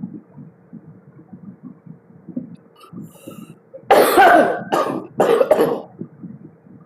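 A woman coughing three times in quick succession, about four seconds in, a vaper's cough.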